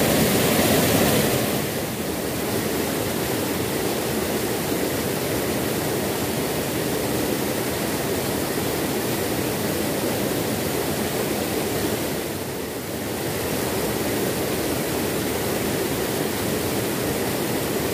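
Small river waterfall pouring over a rock ledge into the pool below, rushing steadily, with two brief slight dips in level, about two seconds in and near twelve seconds in.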